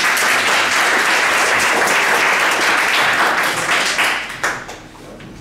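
Audience applauding, dying away about four and a half seconds in.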